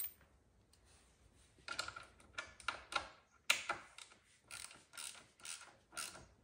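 Hand ratchet wrench tightening a bolt on a motorcycle rearset shift linkage: short clicking ratchet strokes in quick succession, about two to three a second, starting about a second and a half in.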